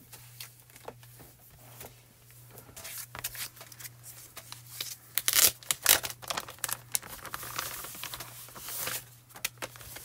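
Clear plastic bag crinkling and rustling as a sheet of cardstock is handled and slid out of it: a run of sharp crackles, loudest around the middle.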